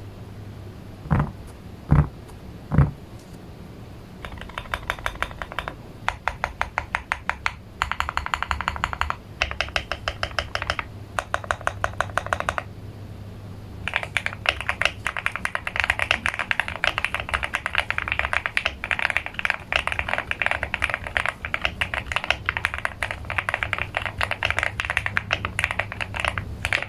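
Typing on a QK65 mechanical keyboard with linear Gateron Oil King switches and Akko Macaw keycaps. Three heavy low thumps come first, then short runs of fast keystrokes, and from about halfway on, continuous rapid typing.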